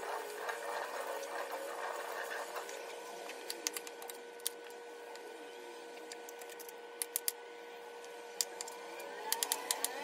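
Kitchen knife slicing green bell peppers on a plastic cutting board: sharp taps as the blade meets the board, a few about three to four seconds in, three near seven seconds and a quick run of them near the end, over a steady faint hum.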